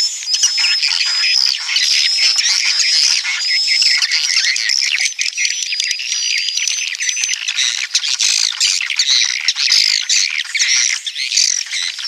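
Swiftlet roosting-call sound (suara walet inap), the kind of track played to draw swiftlets in to roost. It is a dense chatter of high chirps and twitters with short repeated whistles and rapid clicks throughout.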